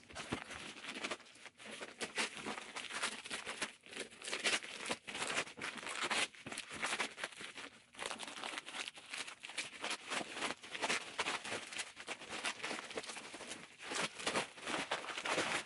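Yellow padded paper mailer envelope and its packing tape being torn open and pulled apart by hand: a dense, irregular run of ripping, crinkling and rustling.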